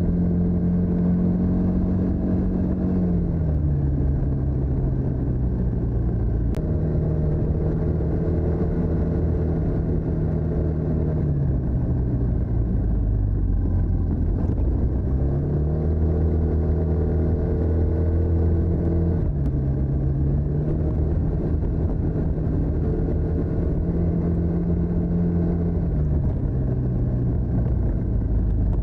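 TVS NTorq 125 scooter's single-cylinder four-stroke engine and stock exhaust under way, its note dropping as the throttle is eased and picking up again several times, over a steady low rumble.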